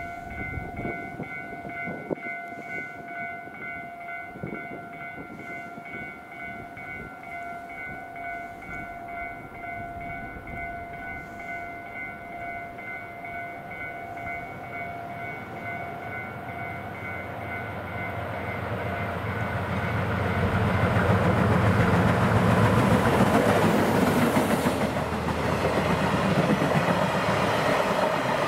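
A DF200 diesel-electric locomotive approaching and running through with a container freight train. For the first two-thirds a steady pulsing warning tone rings over a faint rumble. About two-thirds in, the locomotive's engine and wheels grow loud as it passes, followed by the rumble and clatter of the container wagons.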